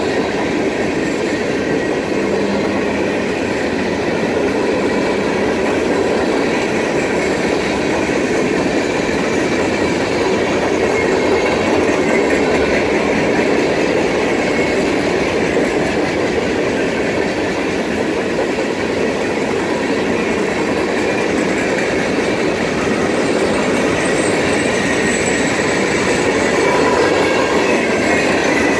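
Norfolk Southern mixed freight train's cars rolling past: a steady loud rolling noise of steel wheels on the rails.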